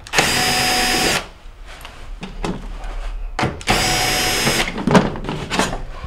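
Cordless drill with a quarter-inch nut driver bit running twice, about a second each, backing out the sheet-metal screws of a refrigerator's back access panel, with several light knocks and clicks between and after the runs.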